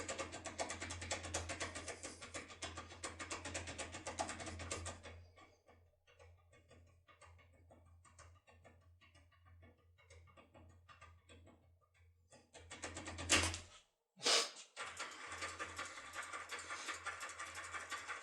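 Foil lockpick being worked in a Securemme K75 cylinder lock, giving rapid metallic clicking and rattling in two long spells with scattered ticks between them.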